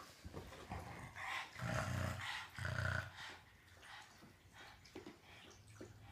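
Pug growling twice, two short, low growls about a second apart, less than a second each.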